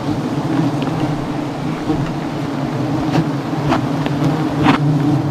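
Dense, steady hum of a swarm of giant honeybees flying around their opened comb. A few short sharp clicks come in the second half.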